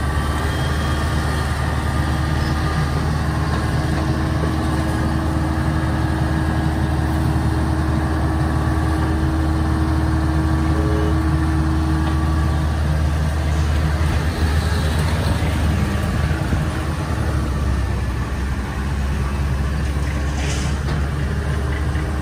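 Kubota DC70 combine harvester's diesel engine running steadily as the rubber-tracked machine crawls over boarding ramps onto a ferry.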